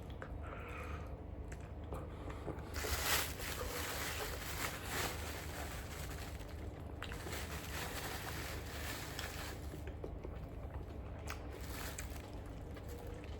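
Eating and handling noises over a low steady hum: a stretch of rustling with small clicks from about three to ten seconds in.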